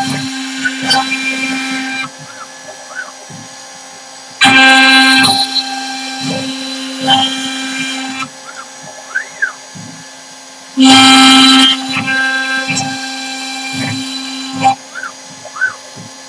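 CNC router spindle running steadily while its bit cuts slots into a wooden turkey box call turned on a rotary fourth axis. The cutting gets much louder for about a second twice, about four and a half and eleven seconds in, with smaller cuts and short rising-and-falling whines between.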